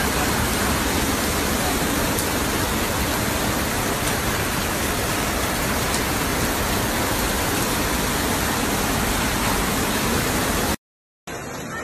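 Fast-flowing floodwater and heavy rain: a steady rushing noise that cuts off suddenly near the end.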